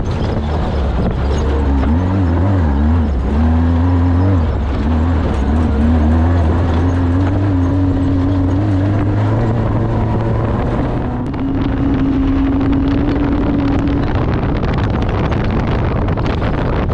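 Off-road race vehicle's engine running hard, its pitch wavering up and down and then holding steady, with a short dip about eleven seconds in, over loud wind and rattling noise.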